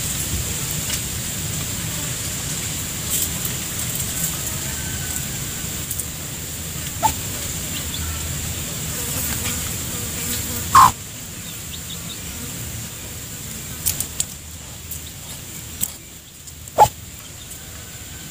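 Domestic chickens giving a few short, spaced clucks, the loudest about eleven seconds in, over steady background noise.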